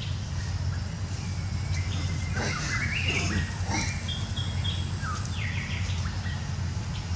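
Birds chirping in forest, short high calls scattered through the middle of the stretch, some rising in pitch, over a steady low hum.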